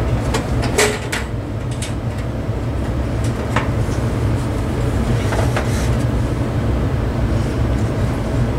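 Handling of a sheet-metal fan-forced heater while working its control knob and front panel loose: a few scattered clicks and knocks over a steady low hum.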